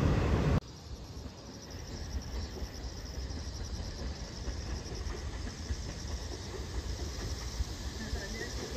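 A commuter electric train passing loudly, cut off abruptly about half a second in. A quieter low rumble follows and slowly grows as an ITX-Saemaeul electric train approaches, with faint insects chirring.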